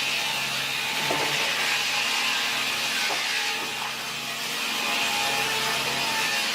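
Sawmill saw cutting through wood with a steady, continuous noise.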